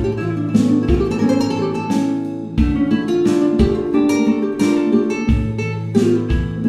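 Background music: strummed acoustic guitar with a low bass line, chords struck about once a second.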